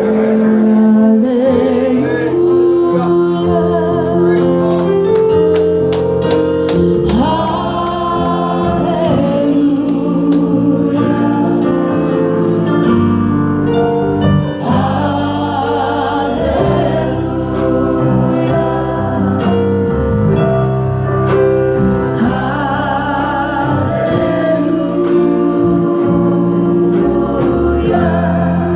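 Gospel worship music: a congregation or choir singing over sustained instrumental chords.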